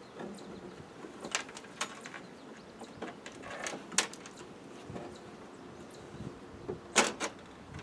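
Scattered metallic clicks and knocks of hand tools and parts as a Land Rover Defender's clutch master cylinder is worked loose and lifted out; the loudest knock comes about a second before the end.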